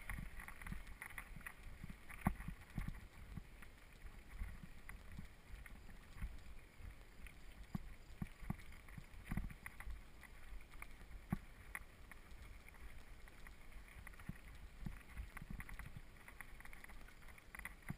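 Mountain bike tyres rolling over a gravel road, with irregular small clicks and knocks as the bike jolts over the stones, under a low rumble of wind on the microphone.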